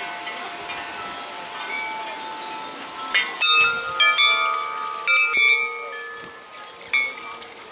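Set of long black tubular wind chimes struck by hand about five times. Each strike sets several tubes ringing in long, overlapping tones.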